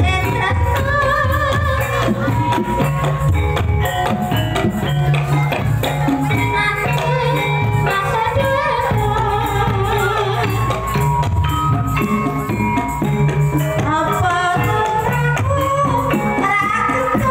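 Live Banyumasan gamelan playing ebeg accompaniment: kendang drum, gongs and metal percussion in a steady beat, with a voice singing over it.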